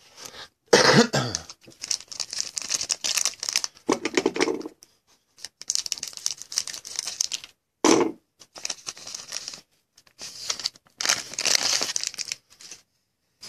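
Foil wrapper of a 2014 Panini Contenders football card pack crinkling and tearing as it is handled and opened, in a run of irregular rustling bursts. There is a cough about a second in.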